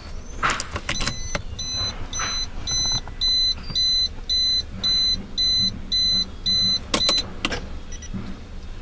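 A 1992 Mitsubishi Pajero's key-in-ignition reminder beeping, about two short electronic beeps a second. It is set off by the key sitting in the lock with the driver's door open. Sharp clicks of the key and ignition switch come at the start and again about seven seconds in, when the key is turned on and the beeping stops.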